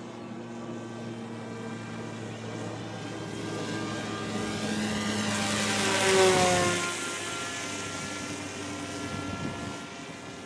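Bixler 2 RC plane's electric motor and pusher propeller whining as it makes a low pass, growing louder to a peak about six seconds in, its pitch dropping as it goes by, then easing off.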